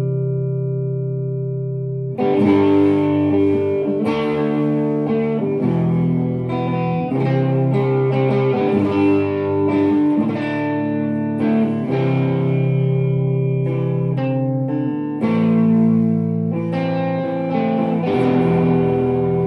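Harley Benton SC-500 Les Paul-style electric guitar with humbucking pickups, played through a Vox AC30 amp cranked a little bit. A chord rings on for about two seconds, then new chords are strummed with a fresh attack every second or so.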